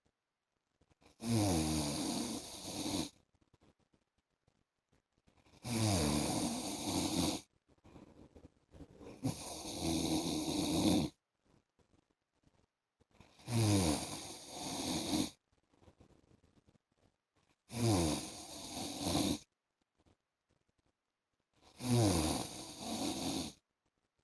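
A man snoring in a steady rhythm: six snores about four seconds apart, each lasting about two seconds and starting with a falling pitch, with near silence between them.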